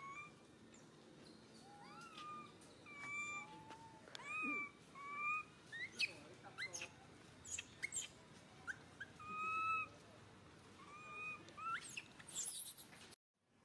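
Infant macaque crying: a string of many short, high whimpering calls, some bending up and down, others sweeping sharply upward, growing shriller near the end.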